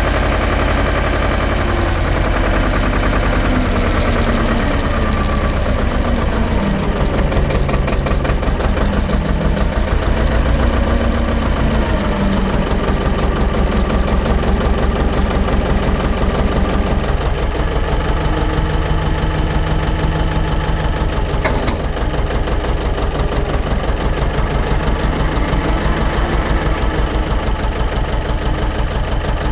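Wheel loader's diesel engine running while the machine drives with a heavy round bale on its pallet fork, a rapid, even chugging. Engine speed rises and falls in the first dozen seconds, then holds steadier.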